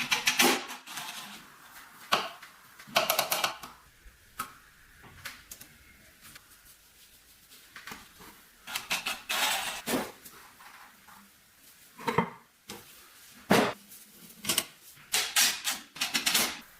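Irregular bursts of metallic clicking, clattering and scraping from hand work on an old sewing machine's metal parts. Each burst lasts about a second, with short pauses between them.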